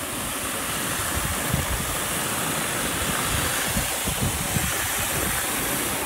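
Several robot vacuums (iRobot Roombas and a eufy) running together, a steady whirring hiss from their suction motors and brushes.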